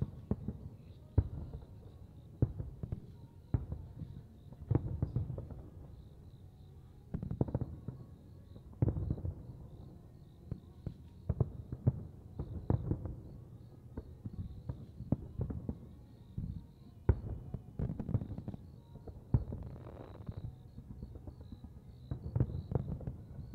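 Aerial fireworks shells bursting: a long run of sharp bangs in irregular clusters, sometimes several in quick succession, each trailing off in a low echoing rumble.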